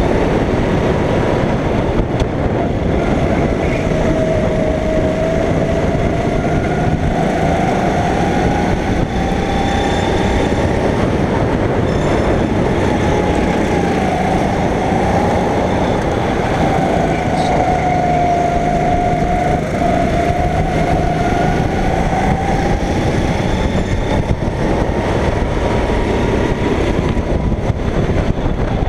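Go-kart engine running at speed, its pitch rising and falling over and over as it accelerates and lifts, over a steady rushing noise.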